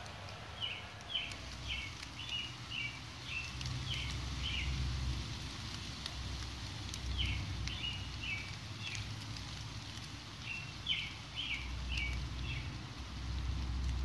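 A songbird singing three phrases, each a quick run of about seven short repeated high notes, over a steady hiss and patter of light rain. A low rumble swells and fades underneath.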